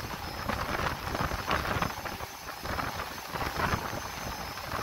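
Large fans of a typhoon wind simulator blowing hard, a rushing gale that buffets the microphone with an uneven low rumble.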